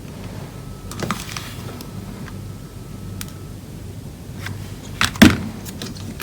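Sharp clicks and taps of hand tools being handled during bench soldering work, one faint about a second in and a louder pair after about five seconds, over a steady low hum.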